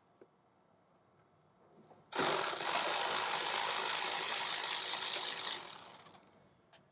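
Cordless power driver spinning out a T15 Torx screw. It starts suddenly about two seconds in, runs steadily for about three seconds, then winds down.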